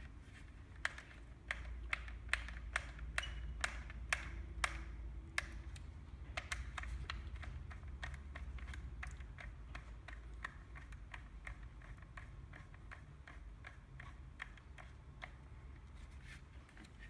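Sharp, irregular clicks and taps of small tool parts being handled and fitted back together while a fencing stapler is reassembled. The clicks come about twice a second at first and grow denser in the middle, over a steady low hum.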